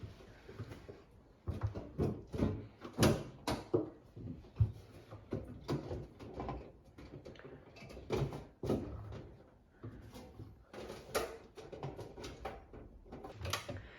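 Parts of a dishwasher being handled: an irregular run of knocks, clatters and sliding scrapes, like a rack or panel being pulled out and pushed back, with a few louder knocks.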